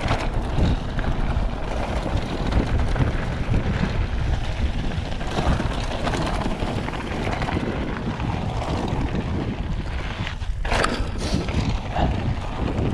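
Mountain bike rolling fast down a dry gravel and dirt singletrack: tyres running over loose stones and the bike rattling, with wind buffeting the camera microphone. A brief sharp clatter about ten seconds in.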